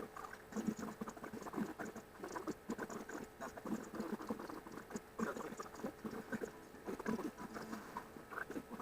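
Sped-up recording of a mother cat and her kittens: a rapid, irregular patter of short chirpy sounds, several a second.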